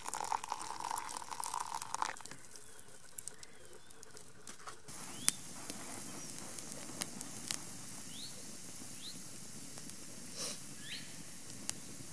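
Hot coffee being poured from a container into a cup for about two seconds, then stopping. After that come faint scattered clicks, one sharper click about five seconds in, and a few short high rising chirps.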